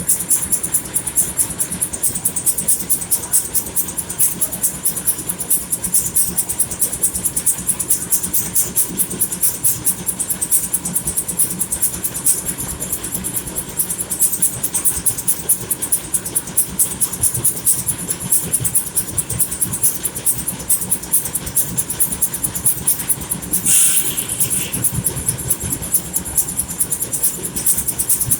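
Sawmill machinery running steadily, its power unit beating about three or four times a second with a hiss on each beat. A brief louder sound comes near the end.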